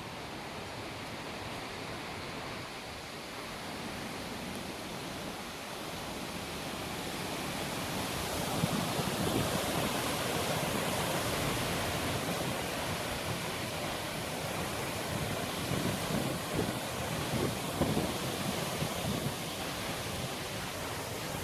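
Wind blowing through trees, a steady rushing of leaves that swells into a stronger gust about eight seconds in, with short bumps of wind on the microphone later on.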